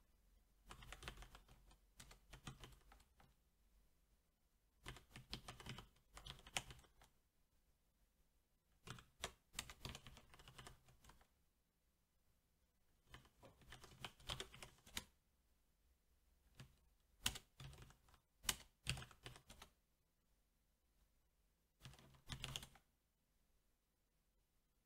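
Typing on a SteelSeries 6Gv2 mechanical keyboard with Cherry MX Black linear switches: about six short bursts of keystrokes separated by pauses of a second or two, with a few sharper single key strikes in the later bursts.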